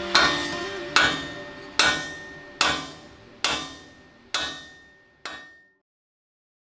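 Steel hammer striking a bent steel armour plate held in a hydraulic press, part of an effort to straighten it. About seven ringing blows come a little under a second apart, growing fainter, and stop near the end.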